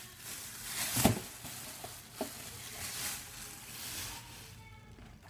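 Clear plastic packaging crinkling and rustling as it is handled, with a sharp crackle about a second in and a smaller click a second later, dying away near the end.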